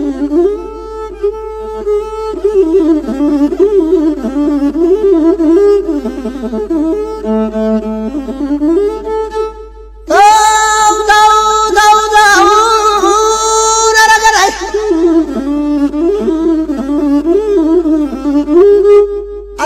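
Instrumental interlude of Ethiopian traditional music: a bowed string melody sliding and wavering in pitch, which drops away briefly about halfway through and comes back much louder.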